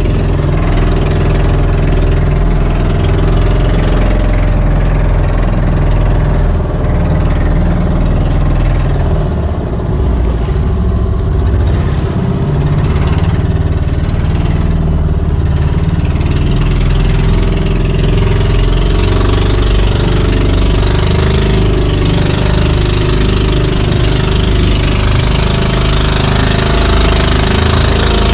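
Outrigger fishing boat's engine running steadily and loudly, an even, unchanging mechanical drone.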